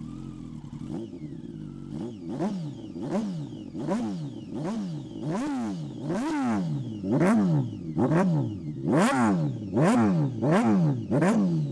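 2006 Yamaha R1's inline-four engine idling, then revved in about a dozen quick throttle blips, each rising and falling in pitch; the later blips, from about nine seconds in, are louder and go higher.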